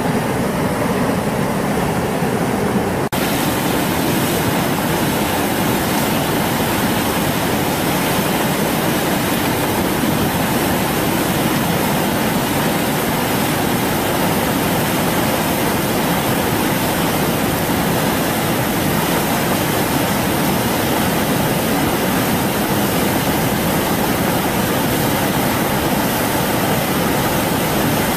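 Fast-flowing muddy floodwater rushing in a river torrent: a loud, steady, even rushing noise with no breaks.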